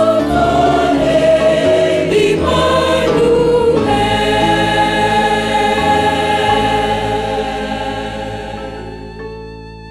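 Seventh-day Adventist church choir singing a gospel song in harmony. About four seconds in the voices settle on long held notes, which fade away over the last few seconds.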